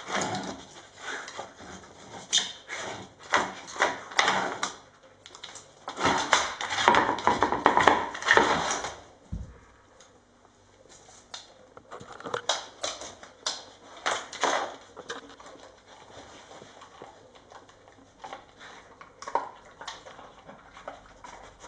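A beagle nosing at a wooden treat-puzzle toy on a hard floor: the toy's covers and board clack and knock in an uneven run of clicks. A busier clatter comes about six seconds in and lasts some three seconds.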